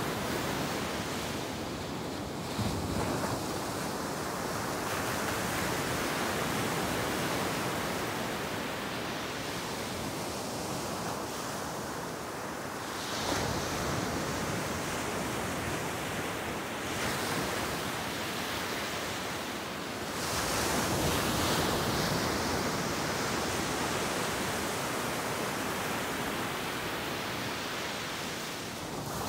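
Sea surf breaking and washing up the beach: a steady rush of noise that swells as each wave breaks and is loudest about twenty seconds in.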